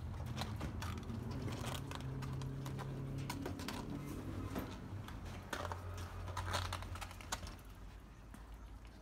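Irregular light clicks and taps of a puppy's claws and paws on the wire mesh of its pen as it climbs, over a low steady hum.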